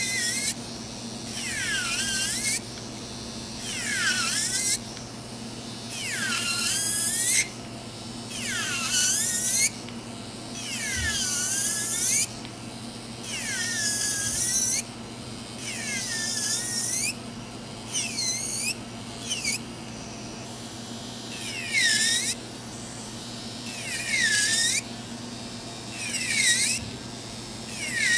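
Electric nail drill filing gel polish off a fingernail in short passes, one roughly every two seconds. In each pass the high whine dips in pitch as the bit bears on the nail, then rises again as it lifts off. A faint steady low hum runs underneath.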